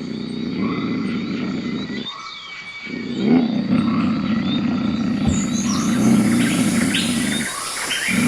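A big cat growling in two long low rumbles, one of about two seconds and a longer one after a short break, with birds chirping behind.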